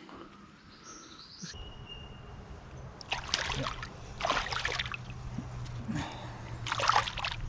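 Water splashing in three short bursts, about three, four and seven seconds in, over a low steady hum.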